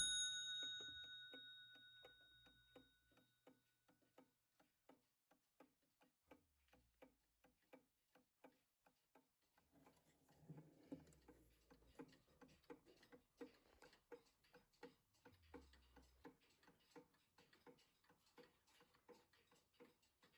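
Junghans gothic steeple alarm clock from about 1900: the last of its alarm bell rings away over the first second or two, leaving the movement ticking steadily at about three ticks a second. The ticking is faint and grows a little louder about halfway through.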